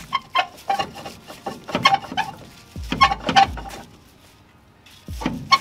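Sharp metallic knocks and clanks from a tight brake drum on a 1964 Chevrolet Impala SS being worked loose, each strike ringing briefly. The knocks come in irregular groups, with a pause about four seconds in and one more hit near the end.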